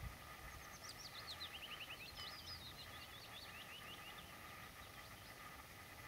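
A songbird singing faintly: two cascades of quick, high notes, each stepping down in pitch over about two seconds, the first starting under a second in and the second just after two seconds.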